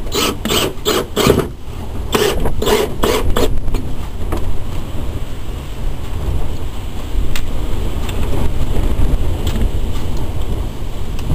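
Two short runs of rasping strokes, about three a second, five and then four, from a hand tool working a brace on the motorhome's front support. Wind rumbles on the microphone throughout.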